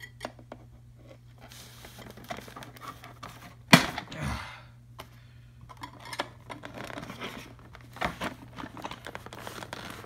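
A small knife cutting and scraping at the cardboard packaging holding a toy dart blaster, with rustling, crinkling and small clicks, and one sharp snap a little under four seconds in.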